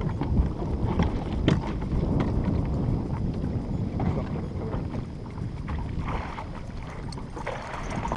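Wind rumbling on the microphone over choppy water lapping at a fishing boat, with a few sharp knocks, the loudest about a second and a half in.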